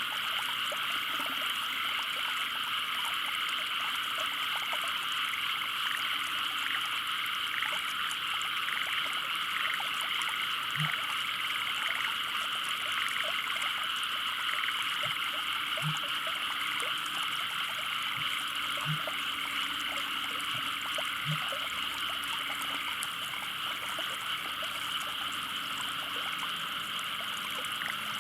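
Dense chorus of many frogs calling at once, a steady high-pitched trilling din. A few short, low croak-like notes stand out now and then in the middle.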